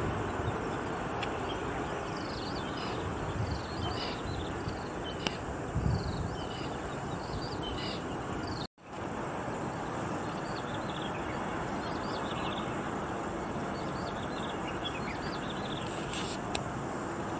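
Small birds chirping, many short high calls scattered over a steady outdoor background hiss, with low wind rumble on the microphone near the start and about six seconds in. The sound drops out for a moment about nine seconds in.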